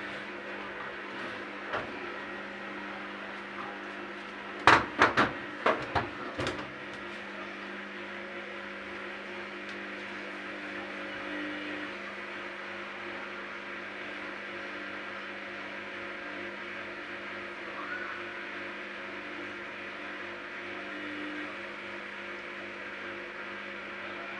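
Washing machine running with a load of wet towels: a steady motor hum, broken about five seconds in by a quick run of five or six sharp knocks.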